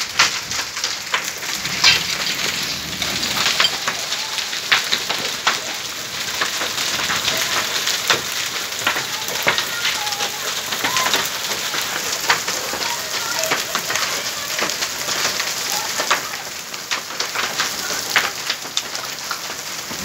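Hailstorm: hailstones and rain pelting a wet concrete courtyard. A steady hiss is dotted with many sharp clicks from individual stones striking.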